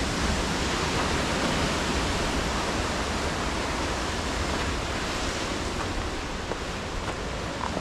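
Steady rushing of ocean surf and wind along a rocky coastline, with a low rumble from wind on the microphone.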